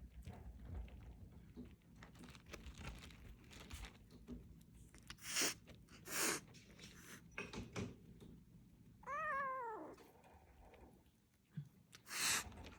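A cat meows once, a drawn-out call that rises and then falls in pitch, about nine seconds in. Around it are soft knocks and several short hiss-like bursts of noise.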